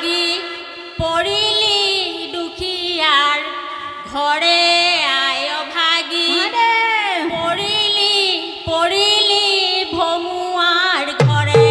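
Women's voices singing an Assamese devotional song in long, gliding melodic phrases, unaccompanied. Near the end, strokes of a hand drum come in.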